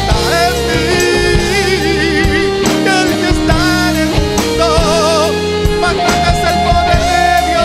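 Instrumental break in a Christian rock song: a Les Paul-style electric guitar plays a lead solo, with wide vibrato on its held notes, over the rest of the band.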